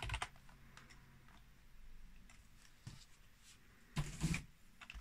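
A few separate keystrokes on a computer keyboard, faint clicks spaced out while a short command is typed, with a louder knock about four seconds in.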